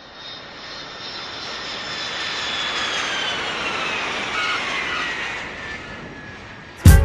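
Jet aircraft passing overhead: a rushing noise that swells and fades, with a high whine falling steadily in pitch. Music with a heavy beat cuts in just before the end.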